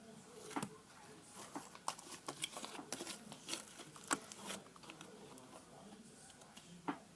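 Slime being worked by hand, giving a run of small sticky crackles and pops, busiest in the first four and a half seconds, with one more pop near the end.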